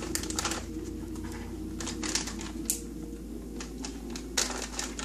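Plastic dog-treat pouch crinkling and crackling as it is handled and worked open, in several short spells of crisp clicks, over a steady low hum.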